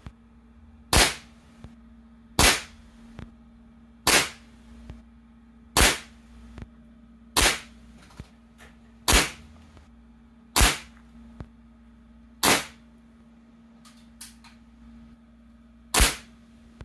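Nine shots from a Crosman 2240 CO2 pellet carbine, each a sharp crack, fired about every one and a half to two seconds with a longer pause before the last. A faint click follows most shots. The CO2 cartridge is nearly spent. A faint steady hum runs underneath.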